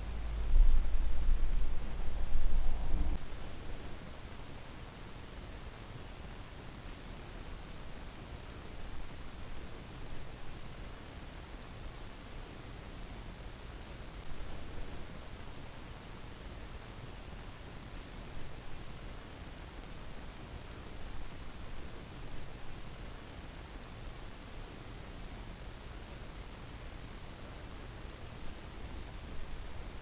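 Crickets chirping: one high chirp pulses in an even, rapid rhythm, with a second, steady trill higher still. A low rumble sits underneath for the first three seconds.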